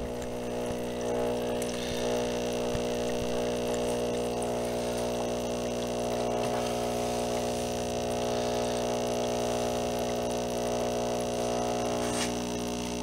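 Small air pump humming steadily as it bubbles air through sodium persulfate etchant in a homemade PCB etching tank, keeping the heated solution mixed.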